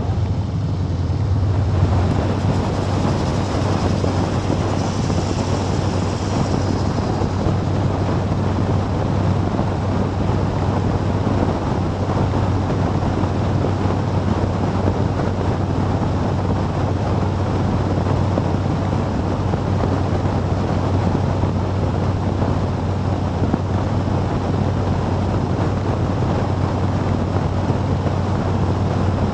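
Wind rushing over a motorcycle-mounted action camera's microphone while riding, over a steady low hum of engine and road noise. The noise steps up a little about two seconds in and then holds steady.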